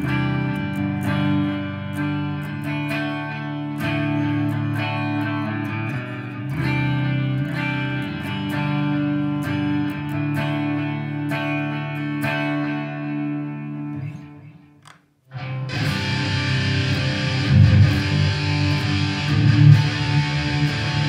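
Jackson SL4X Soloist electric guitar played through an amp with distortion: picked chords and notes ring out, then fade away about fourteen seconds in. After a short break a louder, busier riff starts.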